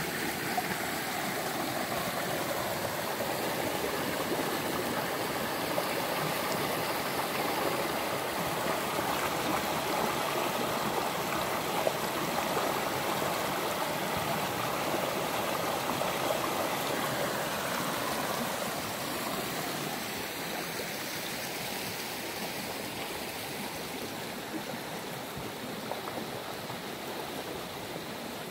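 Steady running water of a stream, a continuous babbling rush that fades a little over the last third.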